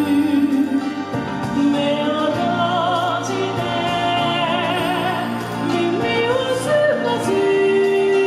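A woman sings into a microphone over a PA, holding notes with a wide vibrato. A long held note begins about seven seconds in.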